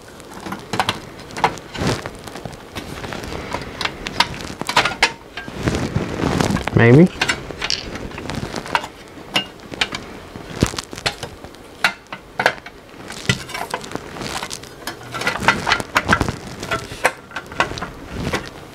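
Repeated clicks, taps and scrapes of a black cover being slid and pressed onto the sheet-metal chassis of a car radio head unit, as it is worked into place by hand.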